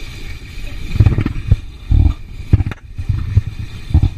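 Wind buffeting the microphone aboard a sailing yacht at sea: irregular low rumbling gusts, several in a few seconds, over a faint steady hiss of wind and water.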